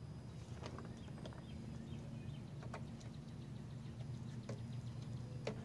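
Light, scattered metallic clicks and scrapes from a drum-brake shoe hold-down spring being pushed in and twisted free against the backing plate, over a steady low hum.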